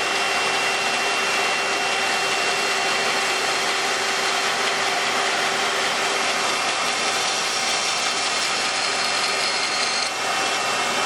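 Band saw running and cutting through a wooden board: a steady hiss of the blade in the wood over the even whine of the motor and blade, with a brief small dip about ten seconds in.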